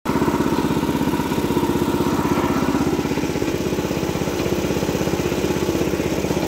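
Small engine idling steadily close by, with a fast, even putter.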